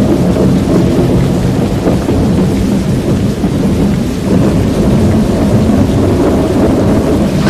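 Loud, steady low rumble of a thunderstorm with heavy rain.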